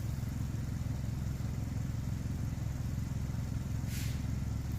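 Engine of a shed mule, a small motorised shed mover, running steadily with a fast low pulsing, with a brief hiss about four seconds in.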